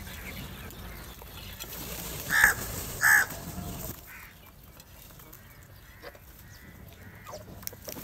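House crows cawing: two loud caws in quick succession about two and a half and three seconds in, followed by faint scattered clicks.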